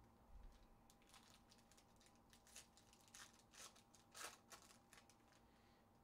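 Foil trading-card pack wrapper being torn open and crinkled by hand: a run of faint crackling rustles, loudest about four seconds in.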